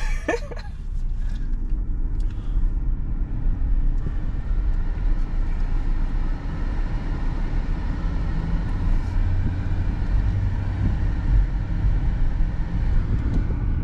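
Car driving: a steady, continuous rumble of engine and road noise.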